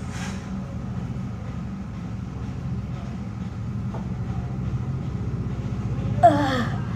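Steady low rumble of a running vehicle. About six seconds in, a short, loud vocal burst falls in pitch.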